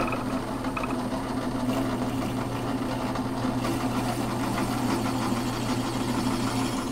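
Drill press motor running at a steady speed while a 5/16-inch twist bit bores out the centre hole of a small wooden pulley.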